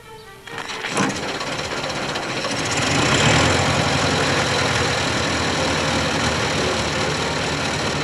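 An early brass-era car's engine, hand-cranked, catches about a second in and then runs steadily, growing louder near three seconds and holding there.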